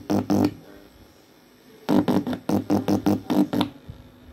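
Short bursts of electronic music played from a smartphone through a BA5406 stereo amplifier board into its loudspeaker. The music breaks off about half a second in and comes back from about two seconds in until shortly before the end.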